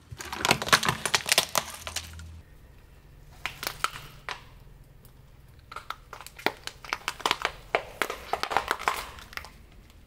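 Car tyre rolling over and crushing a small shiny wrapped plastic object, a burst of dense crackling and snapping for about two seconds. After a few isolated cracks, the tyre rolls over long purple eggplants with a second run of crunching and crackling for about three seconds, the eggplants splitting flat under it.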